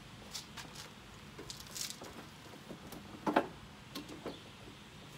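Faint clicks and handling noise from the rear wheel-height adjuster of a Honda HRX217 lawn mower as it is moved to another height setting, with one sharp click about three and a half seconds in.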